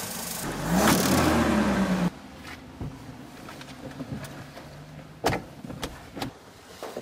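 Car engine revving for about a second and a half, then cut off suddenly. A quieter car interior follows, with a few sharp clicks.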